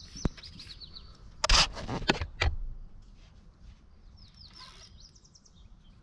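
A bird calling in runs of quick falling chirps, once early and again about four seconds in. A few sharp knocks land between about one and a half and two and a half seconds in, louder than the bird.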